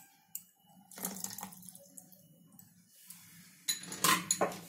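Steel mixer-grinder jar and its lid being handled with the thick spinach paste inside: a click, a wet scraping, then a few louder knocks and clatters of steel near the end.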